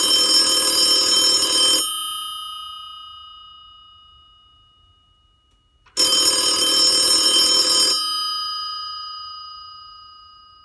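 Telephone bell ringing twice, unanswered: each ring lasts about two seconds and fades out over the next few seconds.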